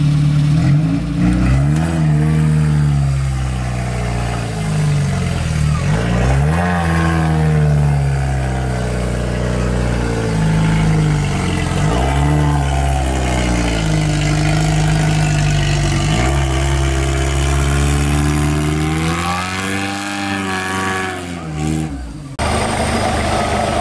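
Off-road 4x4's engine climbing a steep dirt bank, revving up and down again and again as the driver works the throttle. Near the end it cuts abruptly to another engine running steadily.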